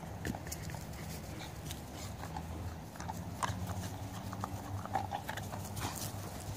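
A Belgian Malinois and a yellow Labrador play-fighting on grass over a stick: paws scuffle and thud on the turf, with many scattered short clicks and knocks.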